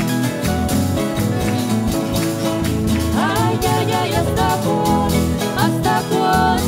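Chilean cueca played on harp and strummed guitars with a steady rhythm; singing comes in about three seconds in.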